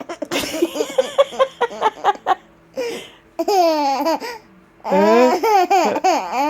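A baby laughing hard: a run of quick laughs, then longer high laughs that slide down in pitch.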